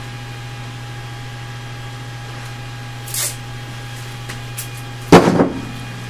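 Steady low hum, with a brief soft hiss about three seconds in and a loud knock about five seconds in.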